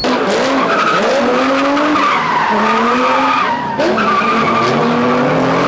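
A car spinning its wheels: tyres squealing and the engine revving, its pitch rising and falling repeatedly.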